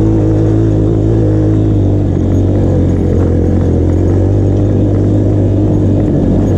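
Dirt bike engine running loudly under way, at a fairly steady pitch with slight wavering.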